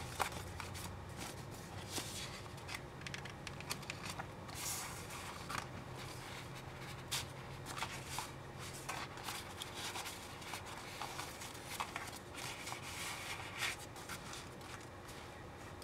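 Paper and card rustling and sliding with light taps, as the tags, cards and pages of a handmade junk journal are handled and turned, over a faint steady low hum.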